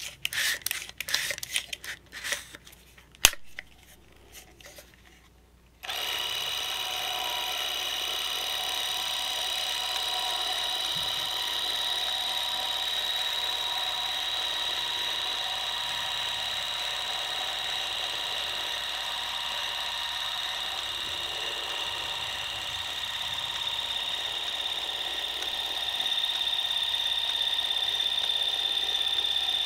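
ELMO 8-V spring-wound 8mm movie camera being wound by its key, a rapid ratcheting ending in a sharp click about three seconds in. After a short pause the clockwork film drive starts at about six seconds in and runs with a steady high-pitched whirr, the camera filming on one full wind of its spring.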